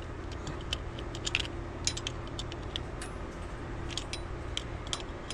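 Pliers working the steel cotter pin in a CV axle nut: small, irregular metallic clicks and ticks as the pin is straightened, over a steady low hum.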